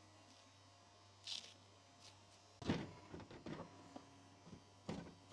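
Masking tape being pulled off with a short tearing hiss about a second in, followed by two knocks of parts being handled, over a steady low hum.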